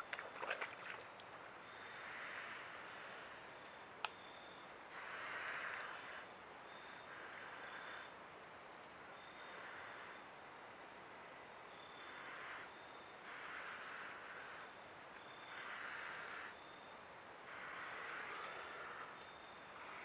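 Night insect chorus: crickets trilling in a steady, high-pitched drone, with softer rasping swells every couple of seconds. A few faint clicks near the start and one sharp click about four seconds in.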